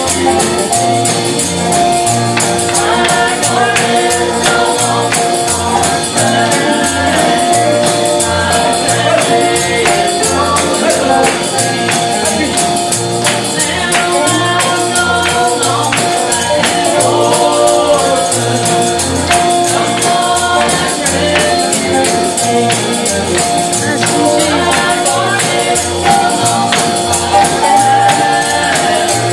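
Gospel music: voices singing over a tambourine shaken in a steady fast rhythm, with a pulsing bass line underneath.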